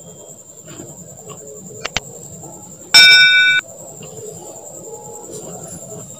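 A single bright chime, several clear tones ringing together for about half a second, about three seconds in: the notification ding of a subscribe-button animation. Around it are faint handling sounds of a tape measure and marker pen on cloth.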